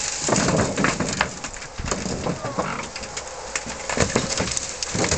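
Wind buffeting the microphone while an upside-down stripped race car is heaved over onto its side, with scattered knocks and scrapes from its steel body.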